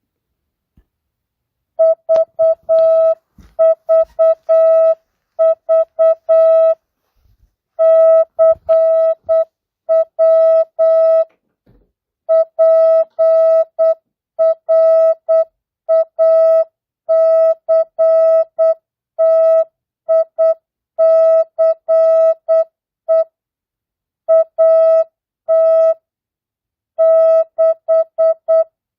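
Morse code (CW) practice tone: a single steady beep keyed on and off in dots and dashes at 8 words per minute with standard (non-Farnsworth) spacing. It starts about two seconds in, opening with the three V's that precede the practice text.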